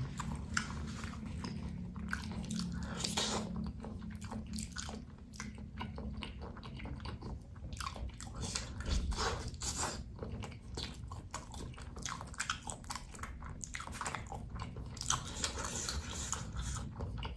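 Close-up chewing and biting of cheese-filled meatballs (bakso), with many small wet mouth clicks throughout.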